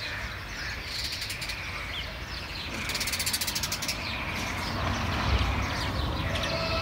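Small songbirds chirping, with short rapid rattling trills about a second in, around three seconds in and again near the end.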